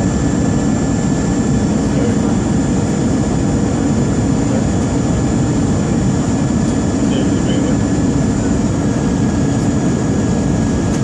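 Jet airliner engines and airflow heard from inside the cabin: a steady low rumble with thin steady whines above it.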